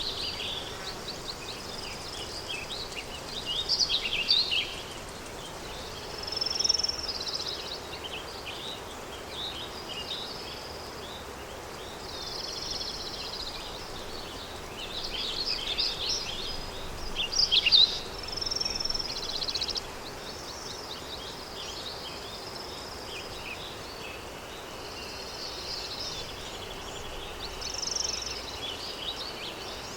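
Countryside daytime ambience: small birds chirping and trilling in repeated bursts over a steady background hiss of breeze.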